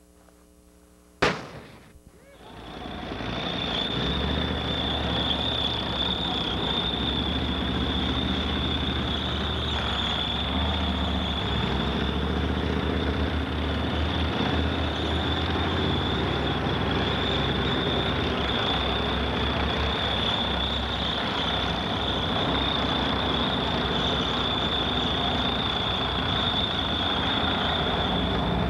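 One sharp bang about a second in, a distant tank gun shot. Then the steady engine and track noise of Leopard tanks driving comes up over a couple of seconds and holds, with a steady high whine over it.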